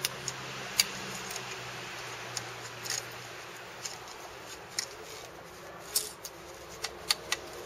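A few light, scattered clicks and taps from handling an opened airsoft PPSh-41 electric gun, over a steady hiss.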